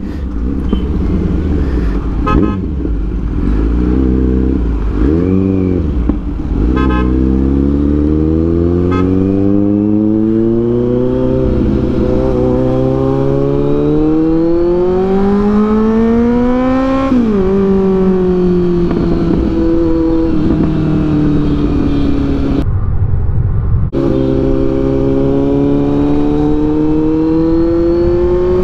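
Kawasaki Z900 inline-four engine under way. It is blipped a couple of times, then pulls with its pitch rising slowly for about ten seconds. Past the middle the pitch drops sharply, settles into a steady cruise, and rises once more near the end.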